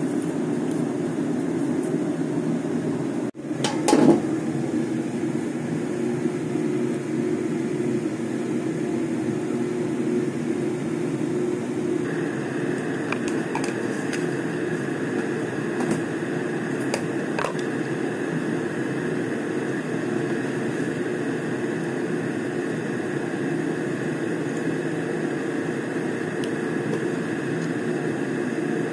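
Steady machine hum, like a fan or running appliance. It cuts out briefly about three seconds in, and a short clatter follows about a second later. A higher steady whine joins about twelve seconds in, with a few faint clicks.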